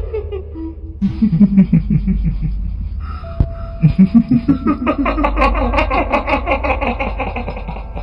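A kuntilanak ghost's cackling 'hihihi' laugh, a voice effect of rapid repeated pulses, coming in about a second in and again in a longer run from about the middle, over eerie background music with a steady low hum.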